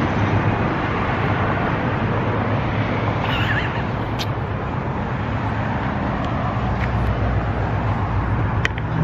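Steady noise of road traffic on the street, with a brief warbling squeak about three seconds in.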